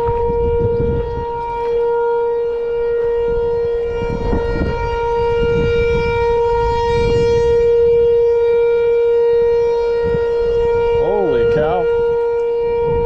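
A loud, steady high-pitched whine with overtones that never changes pitch, an electronic fault in the recording, over low wind rumble on the microphone. Near the end, a short wavering vocal sound.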